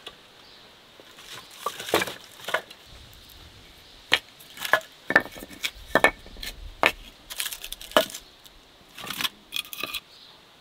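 Split firewood logs knocking and clattering against one another and against the brick floor as they are stacked inside a mud oven: an irregular run of sharp wooden knocks that stops suddenly near the end.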